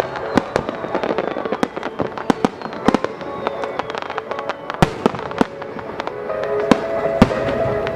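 Fireworks display: many sharp bangs and crackling reports, irregular and overlapping, with accompanying music that grows clearer near the end.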